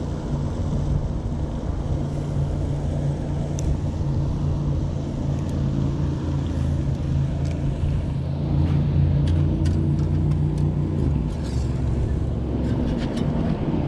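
An engine running steadily with a low hum, with a few short clicks near the end.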